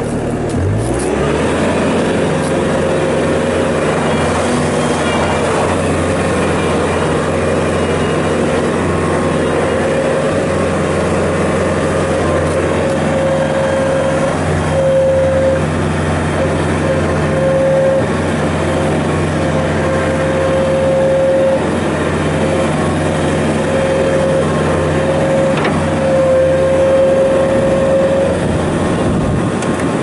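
2016 Bobcat T650 tracked skid steer loader's diesel engine throttled up about a second in, then running steadily under load as the machine is driven and the bucket worked by joystick. A higher whine from the hydraulics comes and goes through the second half.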